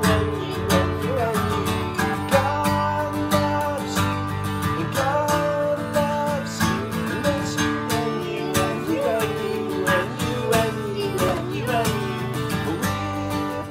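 Acoustic guitar strummed in a steady rhythm while a man sings a children's worship song.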